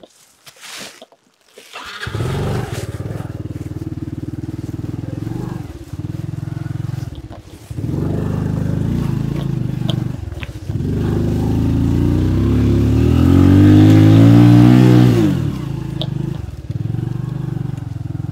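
Small motorbike engine comes in sharply about two seconds in and runs at low revs under load as the bike is ridden up a slippery mud track, with a few brief dips in throttle. Near two-thirds of the way through the revs climb with a rising pitch, then drop back to a lower pull.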